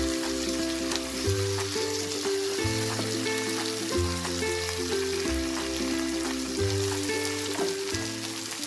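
Chicken pieces sizzling steadily as they fry in hot oil and ghee, under background music of held notes with a bass line that changes about every second and a half.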